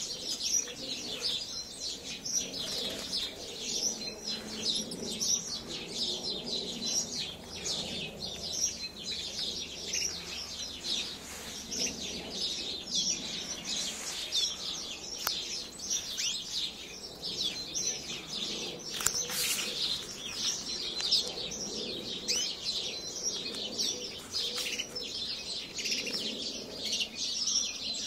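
A flock of small aviary birds chirping and twittering continuously, many short high calls overlapping without a break.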